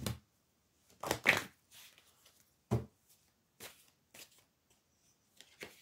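A large deck of tarot-style cards being shuffled by hand: a series of short card rustles and slaps at irregular intervals, roughly one a second.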